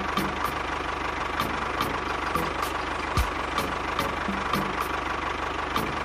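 Tractor engine idling, with an even knock repeating about three times a second over a steady hum.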